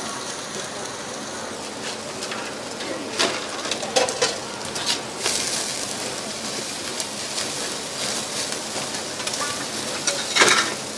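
Pork slices sizzling and crackling over a charcoal fire as fat drips onto the coals and flares, with scattered sharp clicks and a few louder crackles, the loudest near the end.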